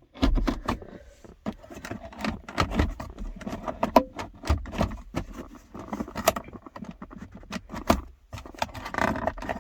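Irregular clicks, knocks and rattles of a 2007 Mazda 6's plastic console trim being handled and worked loose around the gear shifter.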